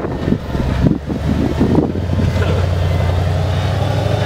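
Off-road vehicle running with a steady low rumble, with a few short knocks and rattles in the first two seconds.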